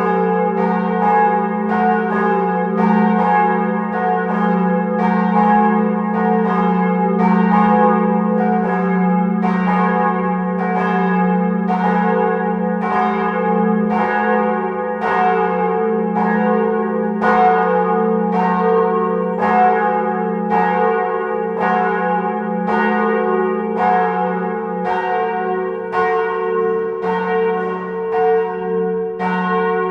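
Church bells ringing in a fast, even succession of strokes, their hum carrying over from one stroke to the next.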